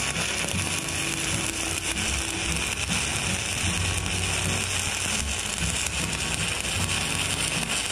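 Stick-welding arc of a 7018 electrode burning steadily, a continuous crackling sizzle. It comes from an Everlast welder in standard stick mode set at 85 amps.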